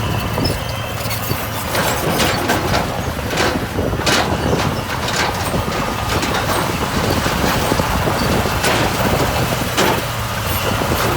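Heavy earthmoving machine's diesel engine running steadily, with irregular clanks and knocks of gravel and stones being worked.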